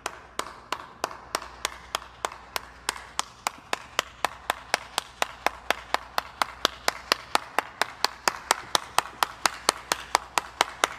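One person's slow hand clapping: single sharp claps at about two to three a second, gradually speeding up and getting louder.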